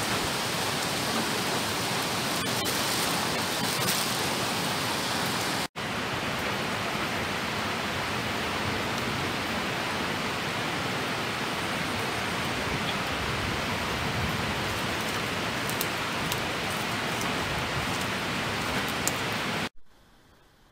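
Steady hiss of heavy rain with a few faint ticks. It breaks off briefly about six seconds in and cuts off about a second before the end.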